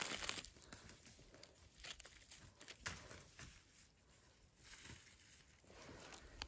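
Faint rustling of dry leaf litter with a few light clicks, strongest at the start, as a mushroom is cut from the forest floor with a small knife and lifted out.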